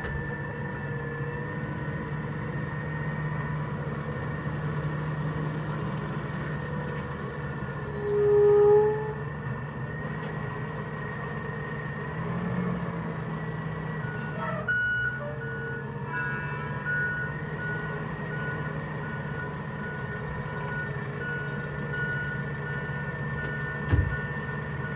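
Recycling truck's engine running steadily, with its reversing alarm beeping at an even pace from about halfway through. A brief loud tone sounds about a third of the way in.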